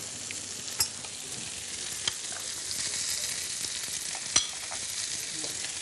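Fish fillets frying gently in butter with herbs and garlic in a nonstick pan, a steady sizzle. A few sharp clicks sound over it, about one second, two seconds and four and a half seconds in.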